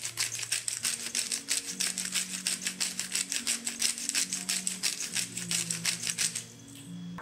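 Hand salt grinder being twisted, its grinding mechanism cracking salt in a fast, even run of dry clicks that stops about six and a half seconds in. Background funk music plays underneath.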